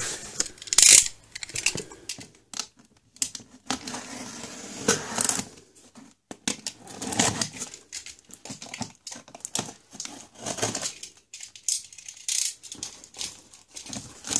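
Hands handling a cardboard shipping box on a tabletop: irregular knocks, taps and rustling scrapes of cardboard.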